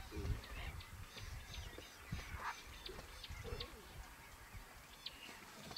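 Birds chirping, short high notes several times a second with a few lower calls between, over a low rumble.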